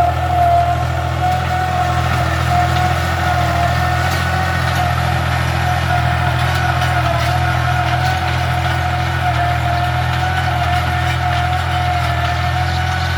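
Tractor engine running steadily while ploughing, a low, even engine note with a steady whine above it.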